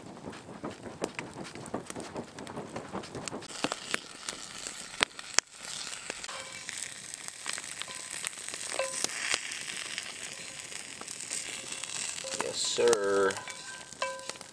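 Campfire crackling and popping for about five seconds. Then, after a short break, sausages and red peppers sizzling in a cast iron skillet as a wooden stick spatula scrapes them out onto a plate. A brief voice-like sound comes near the end.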